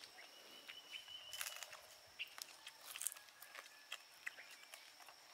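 Faint outdoor rural ambience: a steady high insect drone with scattered small clicks and short crunchy rustles.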